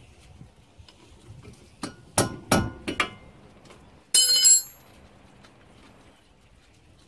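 Sharp metal clicks and knocks of a wrench working the 17 mm slider bolts on a 2001 Mazda MPV's floating front brake caliper, about five in quick succession between two and three seconds in. About four seconds in comes a short, loud, ringing metallic clatter.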